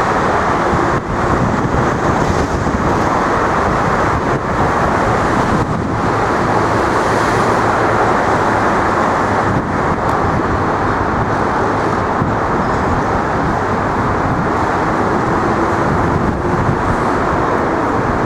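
Steady roar of road traffic, a continuous dense rumble with a faint steady hum underneath.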